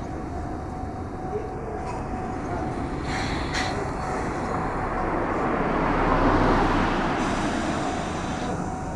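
Traffic noise on a street, with a vehicle passing close by: its sound swells to a peak about six seconds in and then fades.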